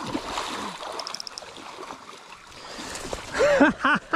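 Water splashing and churning as a king salmon is scooped into a landing net in shallow river water. A voice calls out briefly near the end.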